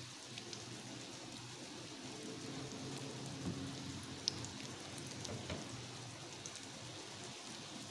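Shami kebabs and halved burger buns frying in oil in a pan: a steady sizzle with scattered crackles.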